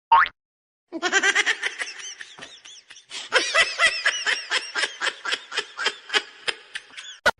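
High-pitched laughter in a long run of quick repeated bursts, about four or five a second. A short rising swoop comes just before it at the very start.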